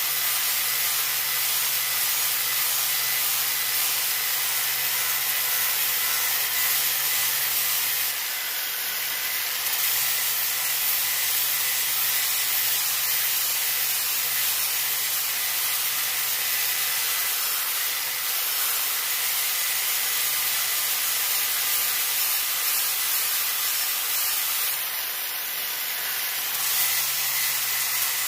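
Angle grinder with a used flap disc sanding the rough surface of a new Lodge cast iron skillet: a steady grinding hiss over the motor's low hum. The sound changes briefly twice, about eight seconds in and again near the end.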